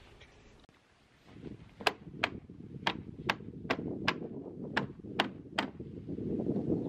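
A run of about nine sharp knocks, two or three a second, starting about two seconds in, as the frame of an Ally folding canoe is worked into place at the bow, over a low rustling.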